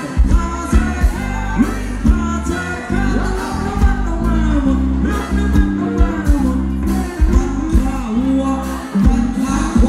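Live Thai ramwong band music: a singer over a steady beat with heavy bass.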